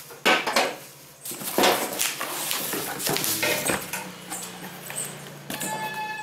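Unpacking noise: a cardboard box and bubble wrap handled and rustled, with irregular knocks and clinks as plastic blender jars and parts are moved about.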